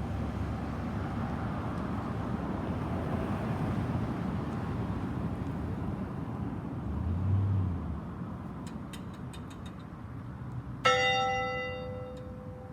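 Church bell tolled slowly: one stroke about eleven seconds in, struck sharply and ringing down with several overtones. Before it, the last ringing of the previous stroke fades over a steady background rumble that swells briefly around seven seconds in.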